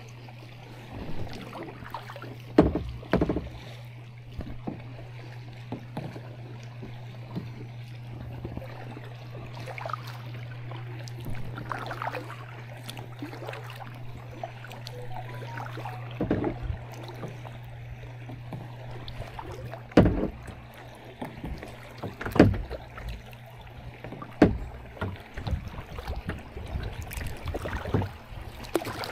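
Kayak paddling on a river: irregular paddle strokes and splashes with sharp knocks every few seconds, over a steady low hum.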